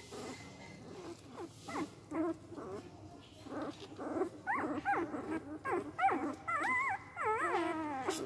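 Four-day-old Indian desi puppies crying: short, high, wavering whimpers, a few at first, then coming one after another from about halfway, ending in warbling up-and-down cries.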